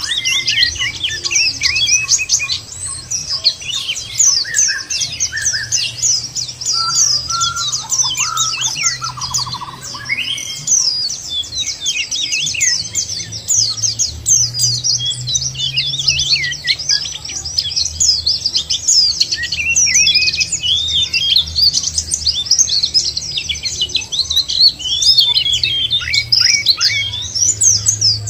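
White-eyes (pleci) singing a fast, dense run of high chirps and twittering trills, almost without a break, over a low steady hum.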